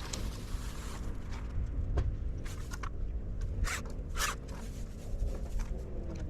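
Several short scraping, rasping sounds over a steady low rumble; the loudest two come about half a second apart a little past the middle.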